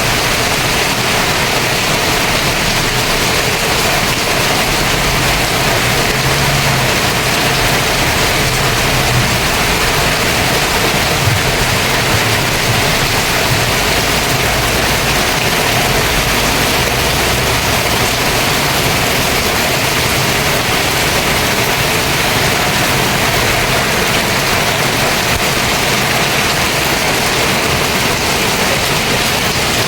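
Heavy downpour of rain pouring steadily with a constant loud hiss, with a faint low rumble coming and going in the first half.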